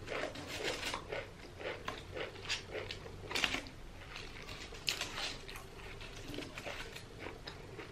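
Close-miked chewing and crunching of food in the mouth, with irregular short crackles, the loudest about three and a half and five seconds in.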